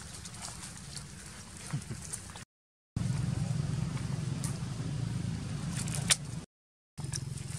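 Dry leaf litter crackling and rustling under a young monkey as it scampers and handles food on the forest floor, with scattered small clicks and one sharp snap about six seconds in, over a steady low hum. The sound cuts out to silence twice for about half a second.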